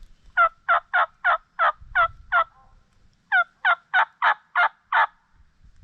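Turkey yelping, loud and close: a series of seven evenly spaced yelps, a short pause, then six more, about three a second.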